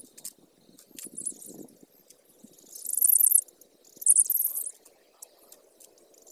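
A bird's rapid, high-pitched chattering calls in three short bursts, the middle one the loudest, over a faint low background hiss.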